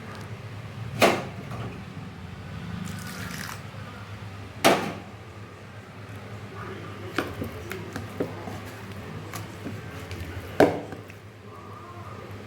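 Thick batter being mixed in a bowl: wet, sloppy mixing with three loud knocks, about a second in, near five seconds and near eleven, and lighter clicks between, over a steady low hum.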